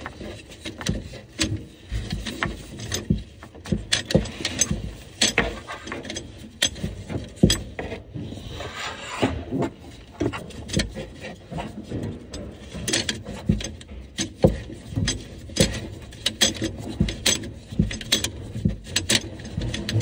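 Irregular clicks, taps and rubbing as hands work the faucet's hoses and mounting nut under a kitchen sink, with a longer rustle about eight seconds in.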